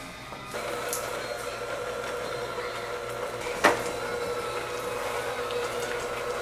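Electric hand mixer running at a steady speed, its beaters working blocks of cream cheese in a glass bowl; it starts up about half a second in with a constant hum. A single sharp click sounds a little past the middle.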